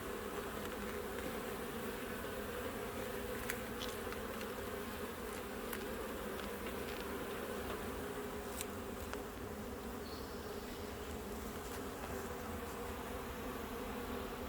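Honeybees humming steadily around an open hive during an inspection, a continuous drone from many bees, with a few faint clicks.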